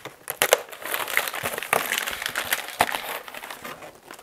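Plastic wrapping and polystyrene packing being handled and pulled apart: irregular crinkling and rustling with sharp crackles.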